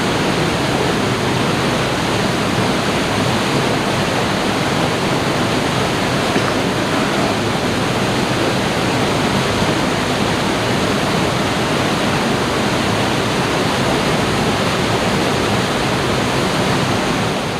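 Waterfall pouring into a rocky pool: a loud, steady rush of falling water, fading out near the end.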